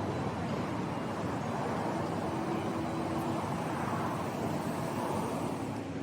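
Steady city street noise dominated by passing road traffic, a constant rumble with no clear single event.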